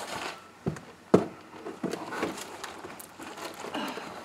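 Two sharp knocks about a second in, then scuffing and shuffling as a 400-pound boxed gun safe is worked through a doorway.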